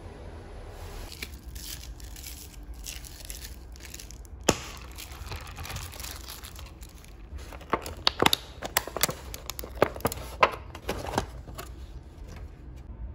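Plastic takeout packaging being handled: crinkling, with one sharp click about four and a half seconds in and a run of sharp crackles and clicks in the second half.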